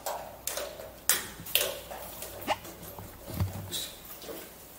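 A pet dog making a few short sounds, among irregular sharp clicks and knocks from footsteps and handling.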